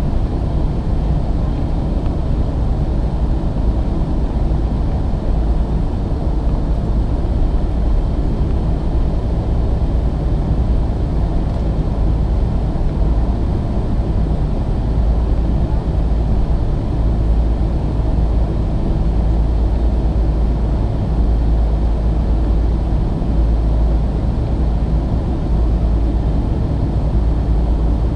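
Steady low rumble of an airplane's engines and airflow at takeoff or climb, unchanging in level throughout.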